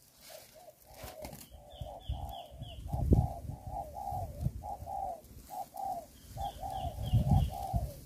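Spotted doves cooing in a long run of short, rapidly repeated low coos. Twice, a quick run of high falling chirps cuts in. Irregular low rumbling thumps, loudest about three seconds in, run underneath.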